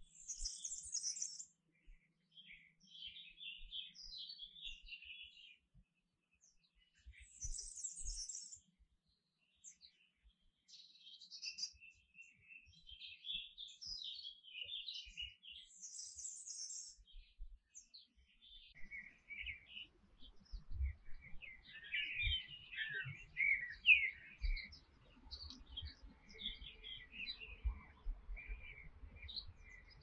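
Domestic canary singing: a run of quick chirps and trilled phrases, broken by high buzzy rolls at the start, about 8 seconds in and about 16 seconds in. Faint low knocks come through in the second half.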